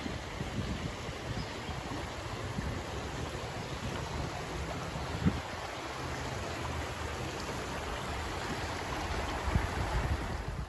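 Shallow creek babbling over rocks and small riffles, a steady rush of water, with one brief knock about five seconds in.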